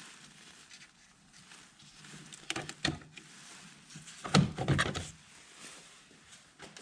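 Plastic cover over the BMW X5's brake fluid reservoir being unclipped and lifted off: scattered clicks and knocks, with two louder clusters about two and a half and four and a half seconds in.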